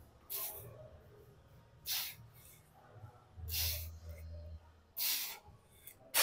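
A man's forceful breaths, four of them about a second and a half apart, as he strains through reps of a reverse fly on a pec-deck machine.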